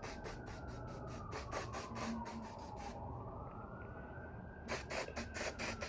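Emergency-vehicle siren wailing in the background, its pitch slowly rising and falling about every three seconds, with a quick run of short sharp clicks or taps over it.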